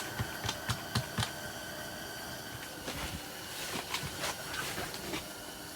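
Scattered light clicks and knocks, several in quick succession near the start and more a few seconds later, over a steady hiss.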